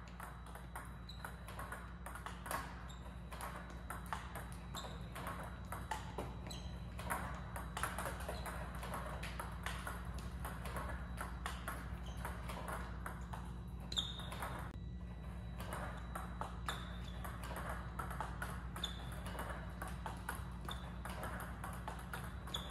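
Table tennis balls struck by a paddle and bouncing on the table in a continuous run of sharp clicks and pings, fed by a Power Pong Omega robot, over a steady low hum.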